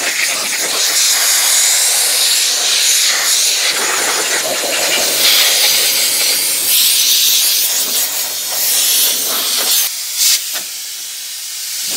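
Compressed-air blow gun blasting dust off a tractor: a loud, steady hiss of air. It lets up briefly near the end with a short puff, then swells again.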